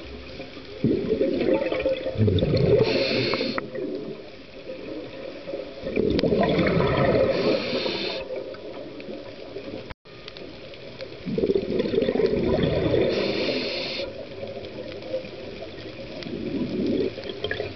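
A scuba diver breathing through a regulator, heard underwater: three gurgling bursts of exhaled bubbles, each two to three seconds long and about five seconds apart, each with a short hiss from the regulator.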